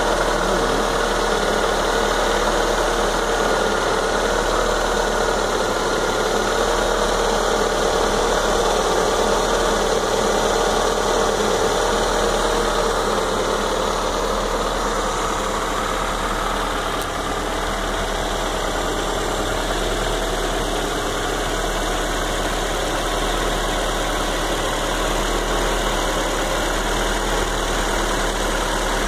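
Ford Zetec-E 1.8-litre 16-valve DOHC in-line four-cylinder engine idling steadily, heard up close in the engine bay.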